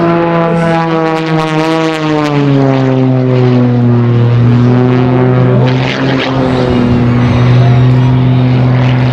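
MXS-RH aerobatic monoplane's 540-cubic-inch piston engine and propeller, loud and steady; its pitch falls over a couple of seconds then holds level.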